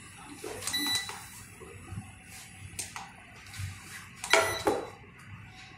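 Cookware handled on a demonstration table: a sharp, ringing clink about a second in, and a louder clatter of pans and utensils about four and a half seconds in.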